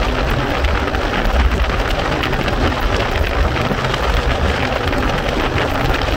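Wind rushing over the microphone on a motorcycle at highway speed: a steady loud rush with heavy, uneven low buffeting, engine and road noise blended in underneath.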